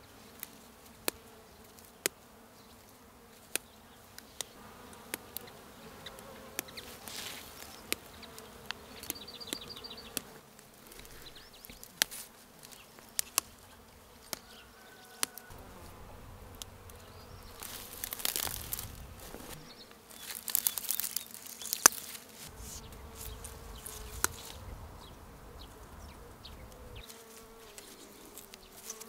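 A flying insect buzzing steadily, its pitch wavering slightly. Over it come sharp snaps of dandelion stems being picked by hand, and bursts of rustling from handled flowers and grass around the middle.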